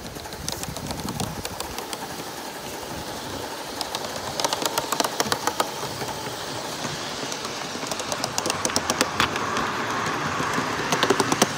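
1/32 scale live-steam model of an NSWGR 38 class locomotive running with its goods train over a steady hiss. Runs of rapid, regular clicking come in about four seconds in and again from about eight seconds in, loudest near the end.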